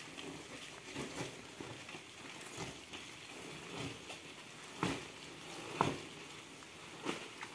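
Pulp-cardboard egg-tray dividers in a dubia roach bin rustling and scraping as a hand shifts them, with irregular crackling and a few louder scrapes in the second half.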